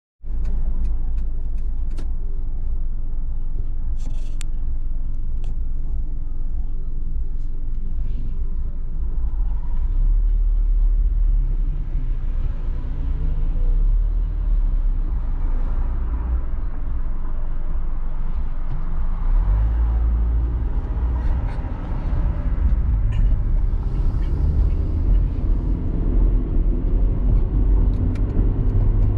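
Car interior noise picked up by a dashboard camera: a steady low engine and road rumble that grows louder in the second half as the car gets moving.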